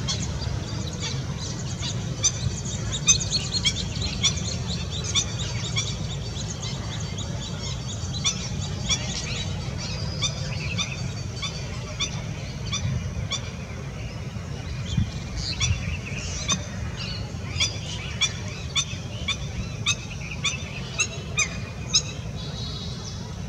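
Lesser whistling ducks calling: many short, high whistles repeated throughout, thickest in two spells, over a steady low rumble.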